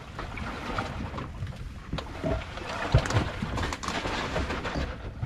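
Wind and sea noise around a small fishing boat, with one sharp thump about three seconds in.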